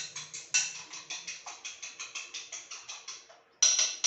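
A fork beating eggs in a bowl: quick, even clinks of metal on the bowl, about six a second, that stop a little after three seconds in. A single louder clatter follows near the end.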